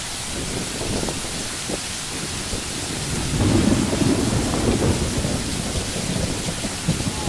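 Steady rain with a low rumble of thunder that swells about three and a half seconds in and dies away by about five seconds.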